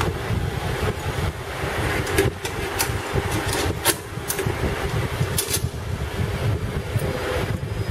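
Sharp metal clicks and clinks, about half a dozen, as a steel bolt and rod are fitted into a bracket on a stainless-steel guide arm. A steady low rumble runs underneath.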